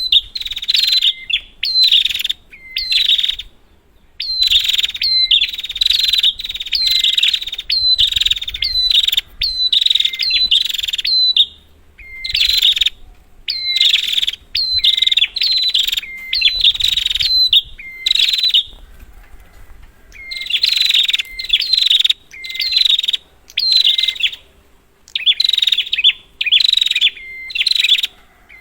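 Prinia (prenjak) calling: sharp, chattering calls repeated about twice a second, in runs broken by short pauses.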